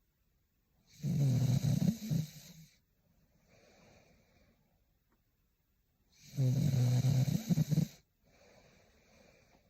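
A young woman snoring in her sleep: two loud snores about five seconds apart, each lasting a second and a half or more, with faint breaths in between.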